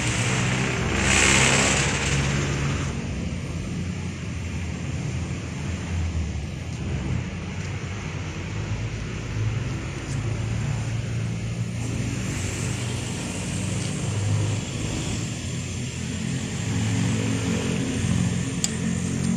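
An engine running steadily, its low hum shifting a little in pitch now and then, with a brief loud rush of noise about a second in.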